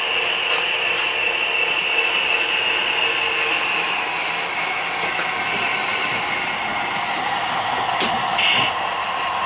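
HO scale model train running on the layout: a steady whir of motor and wheels on the rails, with a few light clicks.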